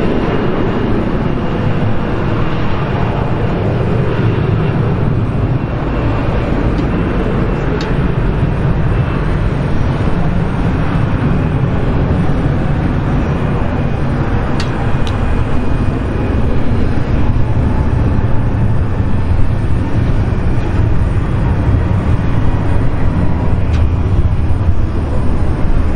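Twin rear-mounted turbofan engines of a Bombardier CRJ900 at takeoff power during the takeoff roll: a steady deep jet rumble that grows louder past the middle.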